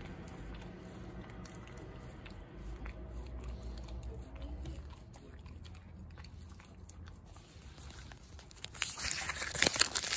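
A husky licking soft-serve ice cream from a cone, faint wet lapping clicks over a low rumble. From about nine seconds in, loud dense crinkling of a paper wrapper being handled close to the microphone.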